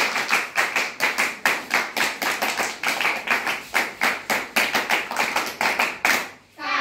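A group of girls clapping their hands in unison in a quick, steady rhythm, about four claps a second. The clapping stops about six seconds in.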